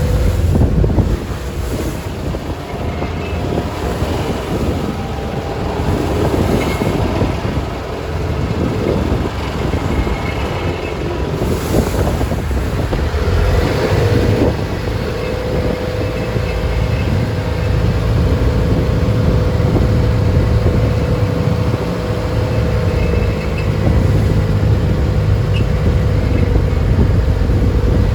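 Traditional wooden passenger boat's engine running with a steady drone, under wind buffeting the microphone.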